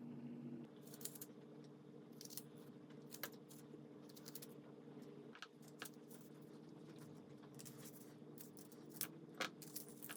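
Faint, irregular clicks and short scrapes of kitchen utensils being handled, a few sharper ones near the end, over a steady low hum.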